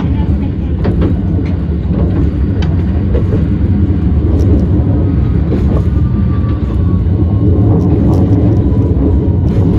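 Hiroshima Electric Railway 1000 series Green mover LEX low-floor tram running along its line, heard from inside the car: a loud, steady low rumble with scattered clicks. A faint motor whine falls in pitch over the last few seconds.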